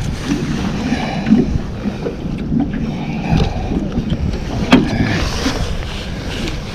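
Wind buffeting the microphone over water sloshing around a small boat, with a few sharp knocks and clatters as a large northern pike is handled in the landing net.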